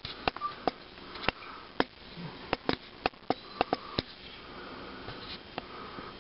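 Dachshund sniffing: a string of short, sharp sniffs at an irregular pace.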